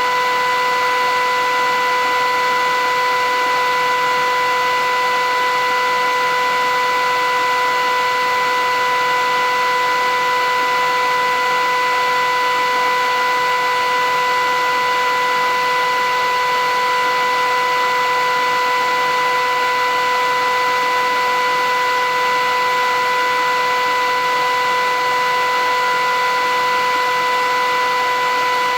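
Philips 8000 series vacuum cleaner running steadily: an even motor whine of several held tones over a rush of air, with no change in pitch or loudness.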